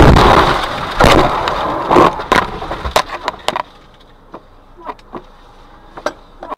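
Car crash heard from inside the car: a sudden loud collision with crunching and breaking, then several more knocks and clattering over the next few seconds, dying down to a few scattered clicks and rattles.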